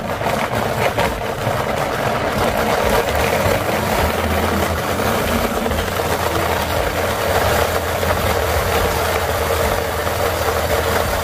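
Countertop blender running steadily at high speed, puréeing toasted guajillo chiles, garlic and vegetable oil into a liquid adobo.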